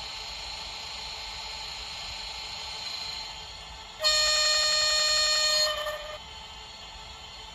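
Model electric locomotive's onboard sound sounding a horn blast about four seconds in, lasting about two seconds, over a steady hiss.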